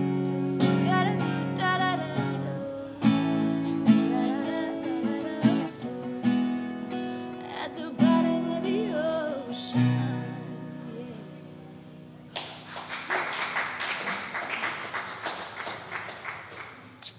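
Acoustic guitar strummed with a woman singing over it, ending on a final chord that rings out about ten seconds in. A few seconds later comes a short round of applause from a small audience.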